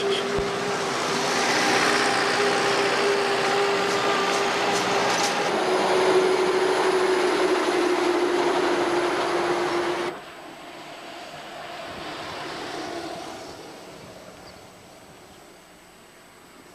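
A heavy motor vehicle's engine runs with a steady drone and hiss. It cuts off suddenly about ten seconds in, and a fainter vehicle sound swells and fades a few seconds later.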